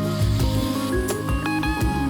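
Background music: an instrumental passage of a soft song, with some guitar notes sliding in pitch.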